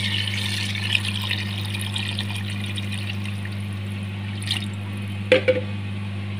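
Water poured from a jug into a pan of potato-and-pea masala, splashing into the liquid, strongest in the first few seconds. A sharp knock comes near the end, over a steady low hum.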